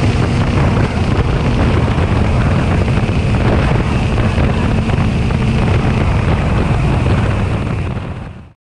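A vehicle's engine pulling hard down the drag strip under full throttle, with heavy wind rush on the microphone. It fades near the end and then cuts off suddenly.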